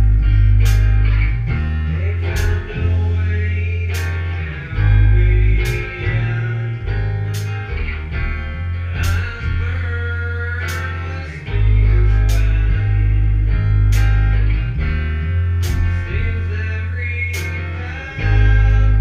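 Small rock band playing live: distorted electric guitar, bass guitar and a drum kit, with the drum hits landing at a slow, even pace under heavy, sustained bass notes. A voice sings over the band at times.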